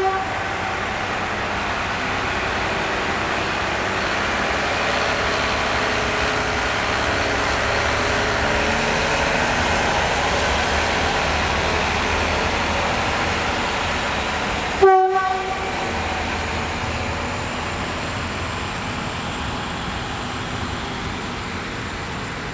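SU4210 diesel locomotive hauling a passenger train away from the station, its engine working and the coaches rolling. The sound swells and then slowly eases as the train moves off. One short horn blast about 15 seconds in.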